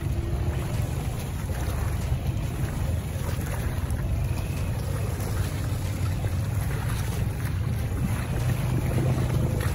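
ATV engine running steadily under load as the quad ploughs through deep muddy water, with the water churning and washing around it.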